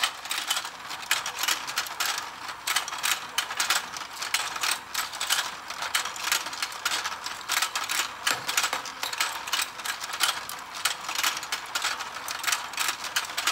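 Let's Go Fishing game's motorized pond running, its plastic gears clicking in a rapid, continuous ticking as the tray turns.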